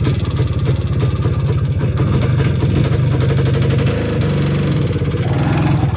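IZh Planeta 3 motorcycle's single-cylinder two-stroke engine running steadily; its note changes about four seconds in.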